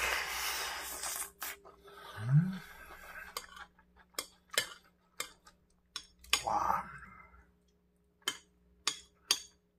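Metal spoon clinking and scraping against a ceramic plate, a string of sharp clicks through the second half with several close together near the end. Close-up mouth sounds of eating at the start, with a brief low hum a couple of seconds in.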